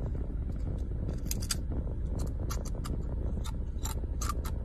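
Crunching of a Takis rolled tortilla chip being bitten and chewed: a dozen or so sharp, irregular crackles over a low steady rumble.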